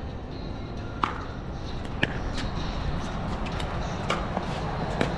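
Pickleball rally: paddles striking the plastic ball, a sharp pop about once a second, over a steady low rumble.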